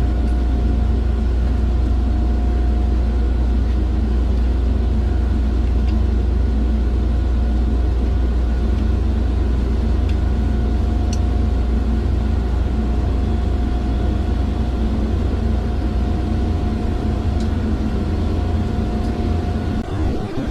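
Industrial cooling-plant machinery running: a loud, steady low rumble and hum with a few constant whining tones. There are occasional faint clicks.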